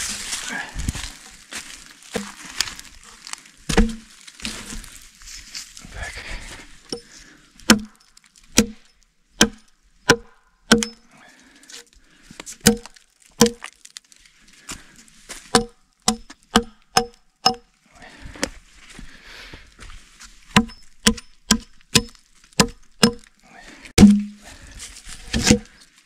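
A hammer knocking a log into place in a log wall: sharp, ringing wooden knocks in quick spells of about two to three a second, after a few seconds of rustling and a heavy thud about four seconds in.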